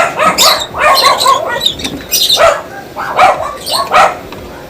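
A dog barking repeatedly, about six short barks in a few seconds.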